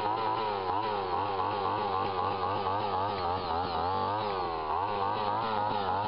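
Small gas-engine handheld drill running a 1¼-inch auger bit into a soil bank, a loud steady engine note whose pitch wavers up and down about three times a second as the bit bores into the earth.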